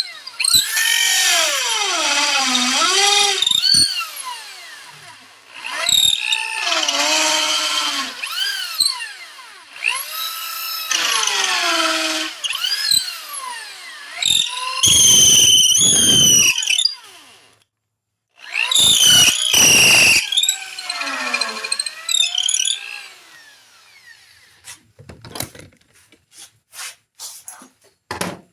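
Electric drill boring the ramrod hole into a walnut pistol stock in about five runs, its whine dropping and rising again as the bit bites into the hard wood and frees up. A few short ticks near the end.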